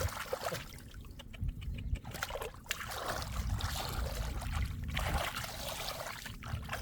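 Shallow floodwater trickling and splashing, busiest in the middle, with scattered small splashes and clicks.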